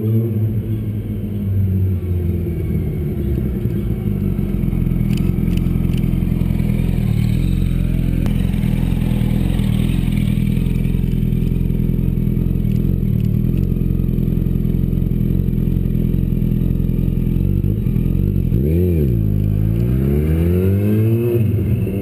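Yamaha YZF-R1's inline-four engine running at a steady low speed, then revved in the last few seconds, its pitch dipping and climbing sharply.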